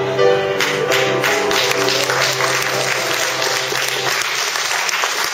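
Piano playing, joined about half a second in by audience applause; the piano fades out near the end while the clapping goes on.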